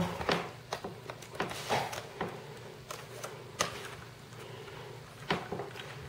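Small screwdriver turning screws into the aluminium bottom case of a 2010 MacBook Pro: scattered light clicks and scrapes of metal on metal, with a couple of sharper clicks about three and a half and five seconds in.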